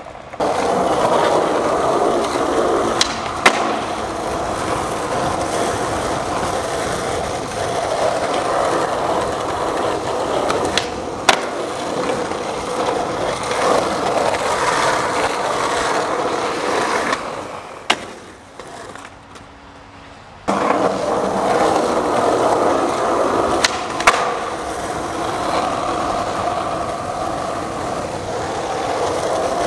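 Skateboard wheels rolling steadily over pavement, with a few sharp clacks. The rolling drops away for a couple of seconds past the middle, then picks up again.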